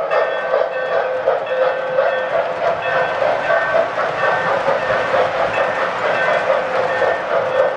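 Lionel O gauge toy train, steam engine 8062 pulling its cars, running past at speed: a steady, continuous running noise of motor and metal wheels clattering along the track.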